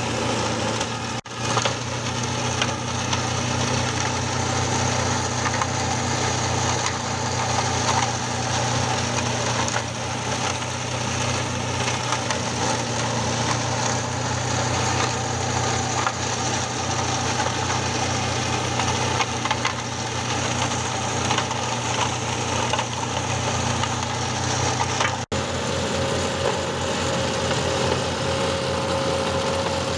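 John Deere tractor running steadily while its PTO-driven flail mulcher shreds olive pruning branches, with the crackle and splintering of wood being chopped over the engine and rotor. The sound cuts out for an instant twice, about a second in and near the end.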